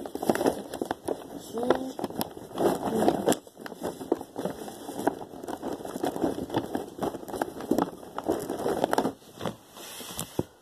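Indistinct, muffled voice with scattered clicks and rustling close to the microphone.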